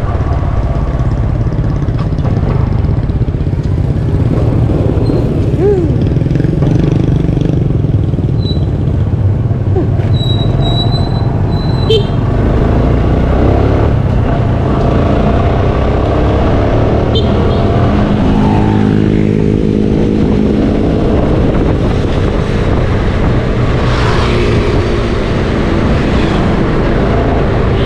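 Motorcycle engine running while riding along a road, a steady low rumble mixed with wind noise on the microphone.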